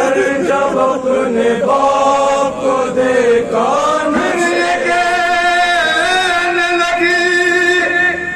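Men chanting a noha, a Shia lament for the dead, into handheld microphones. The line bends in pitch at first, and from about four seconds in the notes are long and held.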